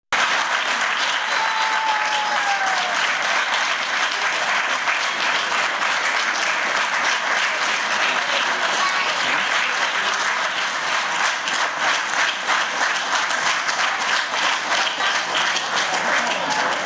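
Audience applauding: many people clapping steadily, easing off slightly near the end.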